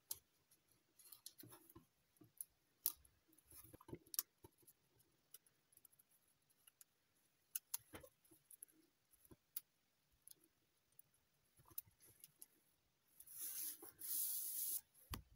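Folded metallic Merci chocolate-wrapper paper handled and tucked together as origami units are joined: soft, scattered clicks and crinkles, with a louder paper rustle for about two seconds near the end.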